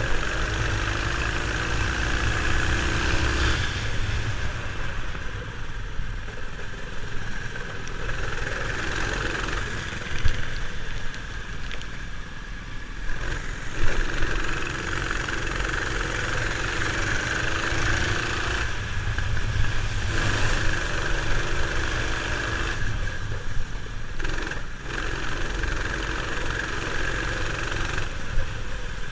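Go-kart engine running as heard from an onboard camera on the kart, its pitch rising with throttle at times, under a steady rush of air and spray noise. Two sharp knocks stand out, about ten and fourteen seconds in.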